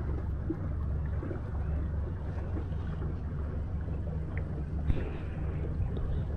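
Boat motor running steadily, a low even hum with wind and water noise over it.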